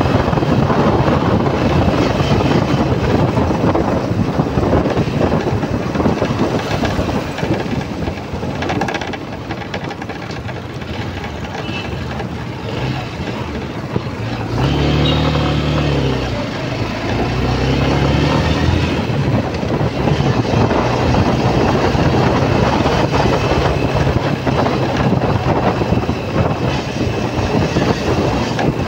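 Road noise of a moving motorcycle: wind rushing over the phone microphone, mixed with the engine and passing traffic. It eases off for a few seconds near the middle, where a low engine note rises and falls before the rush of wind builds again.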